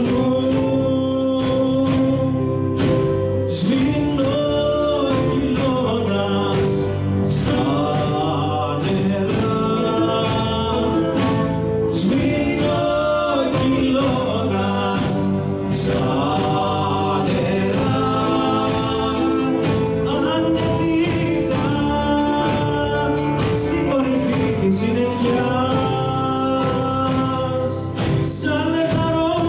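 A live band playing a Greek song: a man sings into a microphone over his own acoustic guitar with the band accompanying, at a steady beat.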